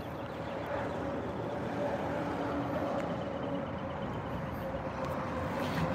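Steady outdoor hum of a running vehicle, with a faint droning tone.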